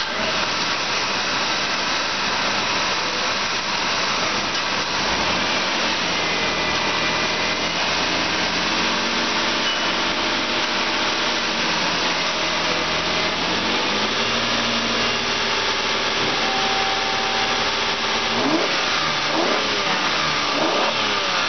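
A 2003 Chrysler Sebring's Mitsubishi-built 3.0-litre 24-valve V6 running under an open hood during a test. It idles, is revved up about five seconds in and held at raised speed, drops back to idle around fourteen seconds, then is blipped a few times near the end.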